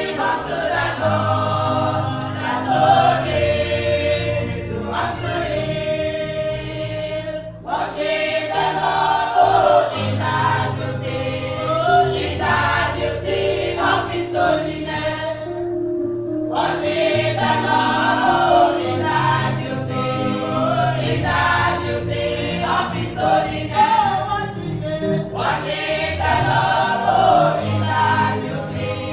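A church choir singing a gospel song over instrumental backing with a low bass line.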